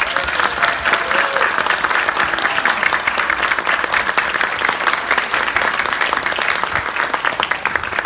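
Audience applauding with dense, steady clapping that starts abruptly.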